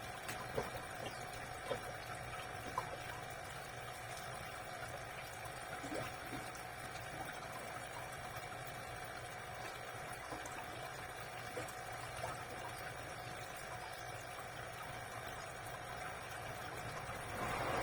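Aquarium water trickling over a steady pump hum, with a few small sharp clicks or splashes in the first three seconds and a brief swell of louder water noise near the end.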